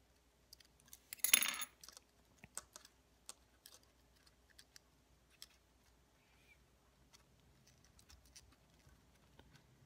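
Small clicks and taps of fingers and a metal pick working on a Holy Stone HS170 mini drone's plastic frame and wiring, with one louder scraping rattle lasting about half a second, about a second in.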